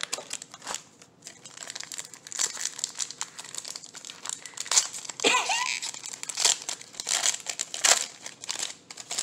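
Foil wrapper of a Magic: The Gathering booster pack crinkling and tearing as it is pulled open by hand, in a run of irregular crackles.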